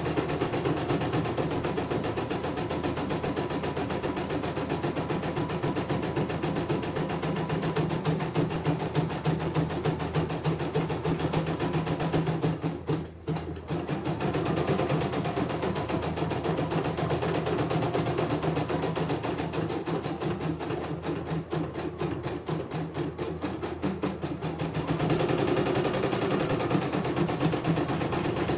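CNY E900 computerized embroidery machine stitching a design: a fast, even needle clatter with the hoop carriage stepping along. It stops for about a second near the middle, then carries on.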